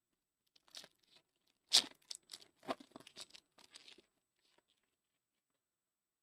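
A trading-card pack wrapper being torn open and crinkled: a burst of rustling and crackling that is loudest about two seconds in and dies out about four seconds in.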